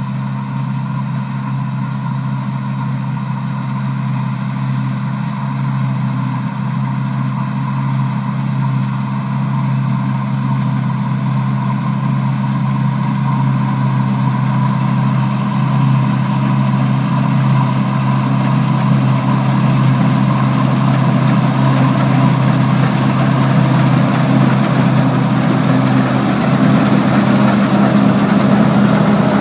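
New Holland TC5080 Hillside combine harvester running steadily while cutting wheat, its engine drone slowly growing louder as it approaches. Near the end a rush of noise builds over the drone as the machine passes close by.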